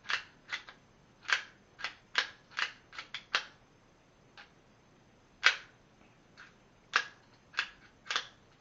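Walther P22 .22 pistol's action being worked by hand, freshly cleaned and lubricated so that it no longer sticks: a string of sharp metallic clicks at an irregular pace, the loudest about five and a half seconds in.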